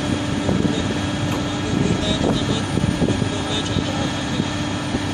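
Caterpillar 329D L excavator's diesel engine and hydraulics running steadily while the boom and its hydraulic crusher attachment are moved, with a continuous steady hum and a few light clicks.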